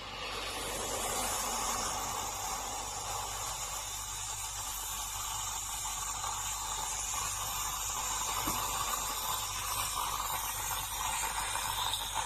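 Tassimo pod coffee machine brewing: a steady hiss of hot water being pumped through the pod, with the sound of liquid pouring into the cup.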